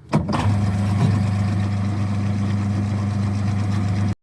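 LG top-loading washing machine running with a steady electric hum, starting with a short knock and cutting off suddenly near the end.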